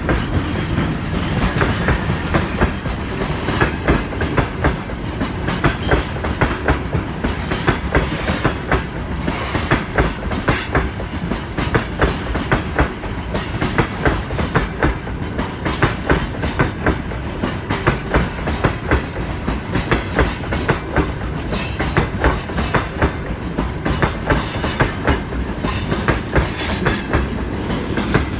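Freight train passing close by: the last sections of the VL10U electric locomotives, then a long string of open gondola wagons. The wheels clatter over the rail joints in a fast, continuous clickety-clack over a steady rolling rumble.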